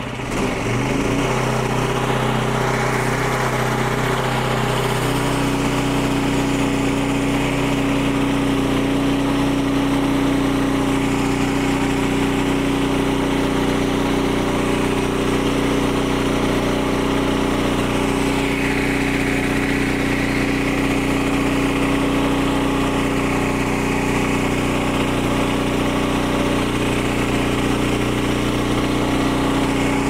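Small engine of a Frontier OS23 portable bandsaw mill speeding up from idle about half a second in, then running steadily at full throttle as the band blade saws through a log.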